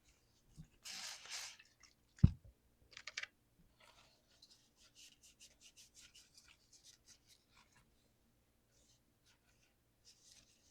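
Hands scrubbing and rubbing at a mechanical keyboard with clicky blue switches while cleaning off residue. There is one brief scrubbing swish, a single sharp knock just after two seconds, a quick cluster of clicks, then a run of faint small ticks and scratches.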